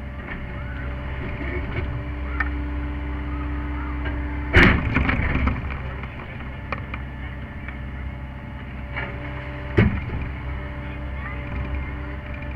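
Sany SY50U mini excavator running under digging load, heard from inside the cab: a steady engine hum with a hydraulic whine held for the first few seconds. About four and a half seconds in comes a loud knock with a short rattle after it, and another sharp knock near the end, as the tooth bucket works at a buried stone.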